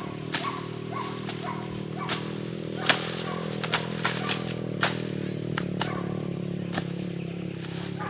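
A blade chopping through dry corn stalks: about eight sharp cuts at an uneven pace, the loudest about three seconds in. A steady low hum runs underneath.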